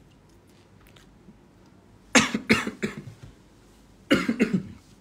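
A man coughing close to a phone microphone: two short fits about two seconds apart, each of about three quick coughs.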